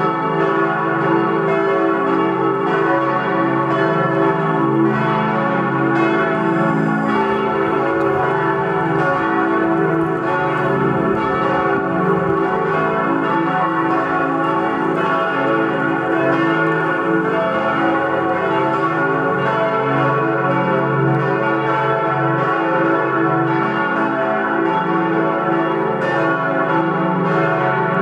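Full peal of four swinging church bells, cast by Perner of Passau in 1972 and tuned to C-sharp, E, F-sharp and A, their strokes overlapping in continuous ringing.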